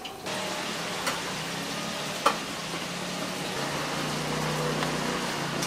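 Chicken deep-frying in a fryer basket, the oil sizzling in a steady hiss that comes up just after the start. Two sharp clicks sound about one and two seconds in, and a low steady hum runs beneath from about halfway.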